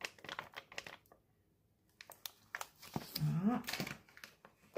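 Thin plastic packet of corn starch crinkling in short crackles as it is tipped and emptied, with a gap of about a second between bursts. A short vocal sound about three seconds in.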